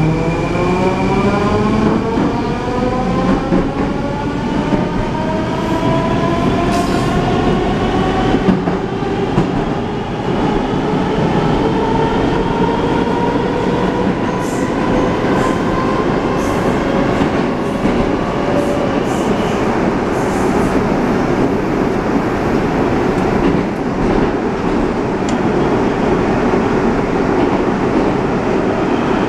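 Rusich 81-740/741 metro train heard from inside the car as it pulls away: the traction drive whines in a stack of tones that rise steadily in pitch for about ten seconds, then level off and fade as it runs at speed. Under it there is a steady wheel-and-rail rumble with scattered clicks from the track.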